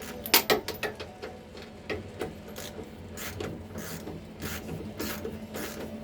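Socket ratchet wrench clicking while a rear shock absorber's bottom mounting bolt is undone, with a quick cluster of clicks near the start and then a steady run of clicks.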